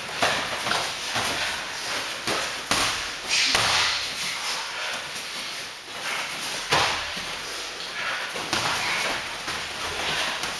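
Irregular thuds and slaps of boxing gloves and shin-guarded kicks landing during kickboxing sparring, the sharpest hits about a fifth of a second in and about seven seconds in.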